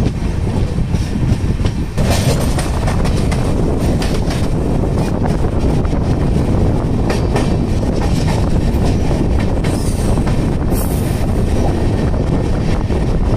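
Moving passenger train: a steady rumble with the wheels clattering over rail joints, and a brief high hiss about two-thirds of the way through.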